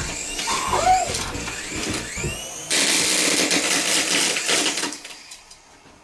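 Toy remote-control helicopter's small electric motor and rotor whirring: a rising whine about two seconds in, then a steady whir that cuts out about five seconds in.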